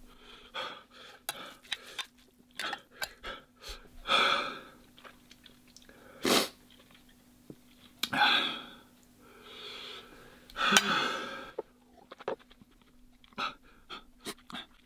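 A man chewing and slurping extremely spicy instant noodles, with small wet clicks and several loud, hissing breaths against the heat, one short and sharp about six seconds in.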